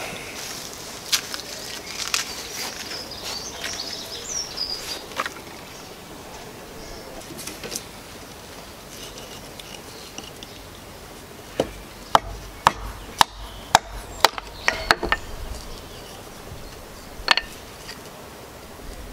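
Birds chirping faintly, then a run of sharp knocks at about two a second as a hatchet is struck into an upright piece of ivy wood on a chopping stump to split out a thin board, followed by one more knock a couple of seconds later.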